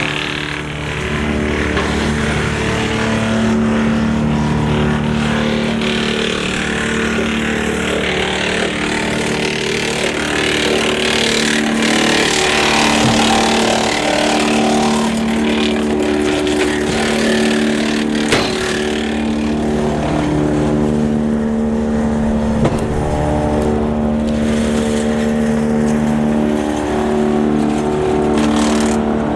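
Tractor PTO driving a Woodland Mills TF810 PRO twin-flywheel wood chipper, running with a steady pitched hum. Over the hum, a rushing noise swells through the first half and fades later, with a couple of sharp ticks.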